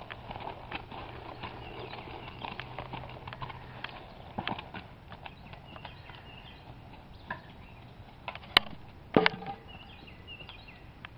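Rocky Mountain horse walking on a dirt track, its hooves clopping irregularly, with two louder sharp knocks about two thirds of the way through.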